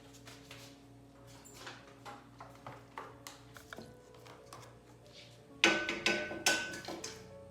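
Light clicks and knocks of hard kitchen containers being handled and set down, then a louder clatter of hard items with a brief ringing clink about five and a half seconds in. Soft background music runs underneath.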